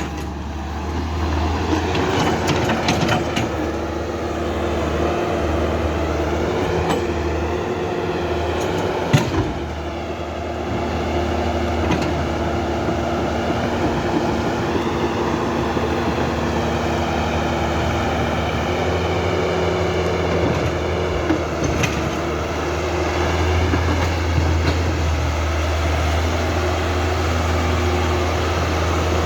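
Small electric motors and gearboxes of radio-controlled construction models working, with a steady low hum and a whine that rises and falls. Scattered clicks and one sharp knock about nine seconds in.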